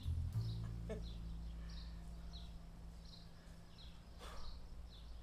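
A bird chirping over and over, short falling chirps about every half second, over a low steady tone that slowly fades.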